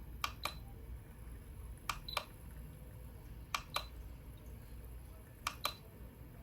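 The push button on a V99 aromatherapy humidifier being pressed four times to step through its light colours, each press a quick double click.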